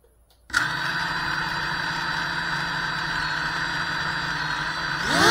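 FPV quadcopter motors start spinning about half a second in as the drone is armed, then idle steadily with a thin high tone over a lower hum. Near the end the pitch climbs sharply and gets louder as the throttle opens for takeoff.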